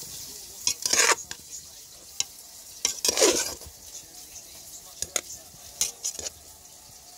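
A metal spoon stirring potato salad with mayonnaise in a metal pot: irregular wet scrapes and squelches, two longer ones about a second and three seconds in, and scattered light clicks of the spoon against the pot.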